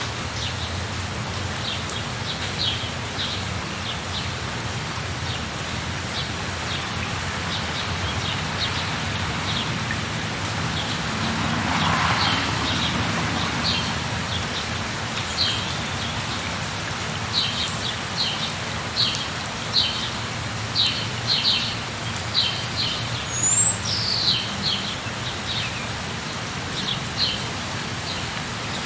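Steady rain falling, with small birds giving short high chirps over it again and again, more often in the second half, and one quick falling whistle a little past the middle.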